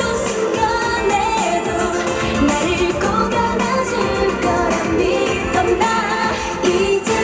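K-pop girl group singing a pop song over its backing track, heard live through the stage loudspeakers.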